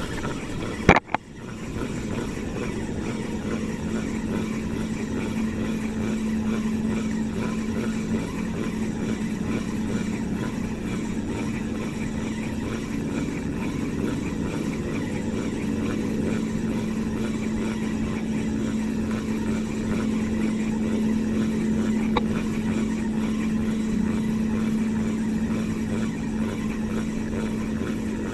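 Motorized banca's engine running with a steady drone, with two sharp knocks about a second in.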